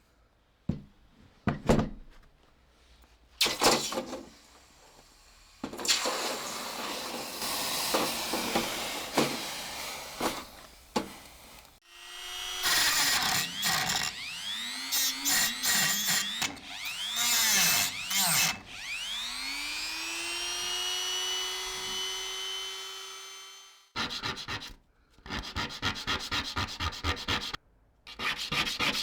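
Workshop work on small metal parts: a few knocks, then scraping, then a small power tool whose motor repeatedly speeds up and slows down. The motor then spins up to a steady whine and cuts off suddenly. Quick, even rubbing strokes follow, like hand filing or sanding.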